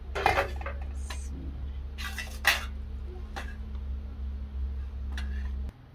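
Metal spoon clinking and scraping against a cooking pot and metal plates as rice is dished out, several separate clinks, over a steady low hum that cuts off abruptly near the end.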